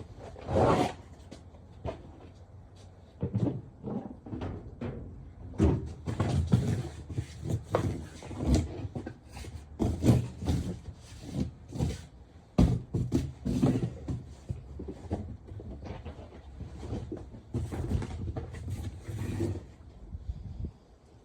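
Thick bed mat being shifted and pushed into place in a Cybertruck's bed: irregular scuffing, rubbing and dull thumps.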